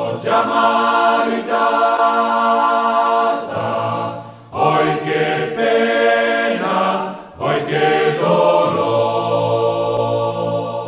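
Choir singing long held chords in three phrases separated by short breaths, with the low voices coming in strongly partway through; the final chord is sustained to the close.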